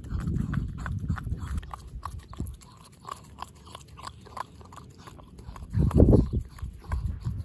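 A Parson Russell Terrier licking whipped cream out of a paper cup: short wet licking smacks, a few a second. There is a loud low rumble about six seconds in.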